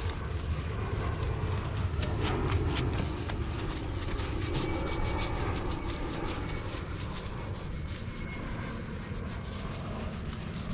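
Sponge scrubbing glue residue off a box truck's painted metal side panel, with a run of short, scratchy rubbing strokes. A steady low rumble sits underneath.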